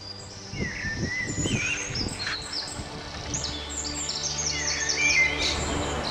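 Woodland birds singing: a mix of high chirps, quick repeated notes and a few lower gliding whistled phrases from several birds at once.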